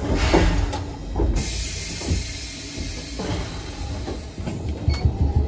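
Keifuku Mobo 2001 tram standing at a stop: a couple of clunks, then a hiss of released compressed air lasting about three seconds. A low, pulsing rumble from the car's equipment builds near the end.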